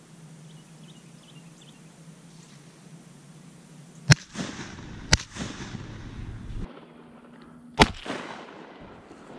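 Three shotgun shots, the first two about a second apart and the third about two and a half seconds later, each echoing briefly.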